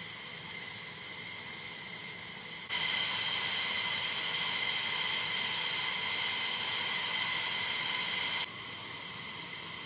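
Steady whine and hiss of jet turbines, with several high steady tones over the rush. It jumps sharply louder about two and a half seconds in and drops back just as suddenly near the end.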